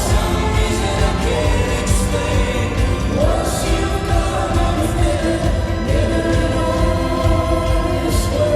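Live band playing with several voices singing together over a heavy, steady low end; the sung line swoops up into a held note near the start, about three seconds in, and again near the end.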